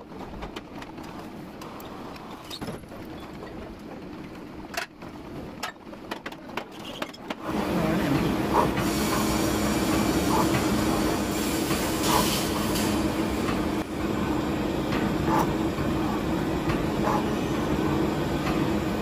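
Metal shaper running, its ram stroking back and forth as a high-speed steel tool planes gear-rack teeth into a steel drill-press quill sleeve. Clicks and clatter at first; about seven seconds in the machine grows louder and steadier, with occasional knocks.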